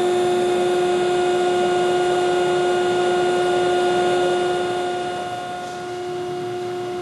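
Carell 305HV CNC profile-bending machine running, a steady machine hum with a strong, even tone. It drops slightly in level about five seconds in.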